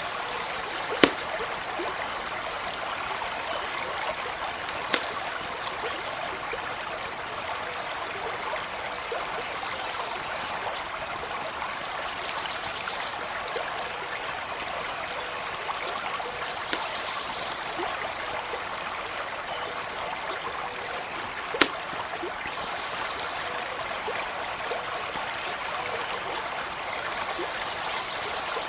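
A creek running steadily, with three sharp campfire pops cutting through it: one about a second in, one around five seconds, and one past the twenty-second mark.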